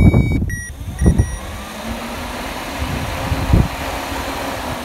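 Chevy Impala's electric radiator cooling fan running close to the microphone: a steady rush of air with a low hum that comes up about a second in. A few low knocks sound over it.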